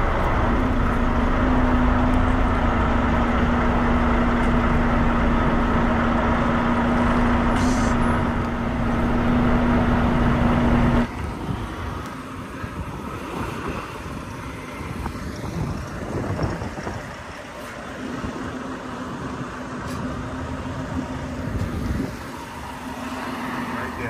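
Semi truck's diesel engine running with a steady low hum as the tractor-trailer backs up, heard loud and close. About eleven seconds in the sound cuts suddenly to a quieter, more distant engine sound.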